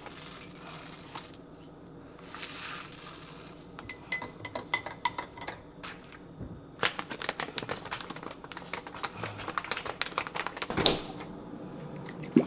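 A spoon clinking against a cup and dishes while chia seeds are mixed into water, with a short rush of pouring about two seconds in, ringing clinks a little later, and quick rapid taps through the second half like stirring.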